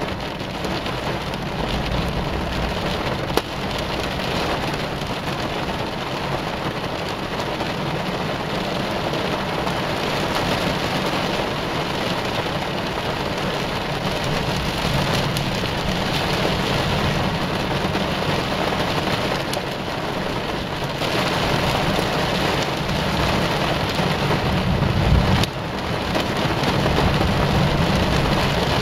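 Heavy rain falling steadily, with a low rumble of thunder underneath that grows louder in the last several seconds.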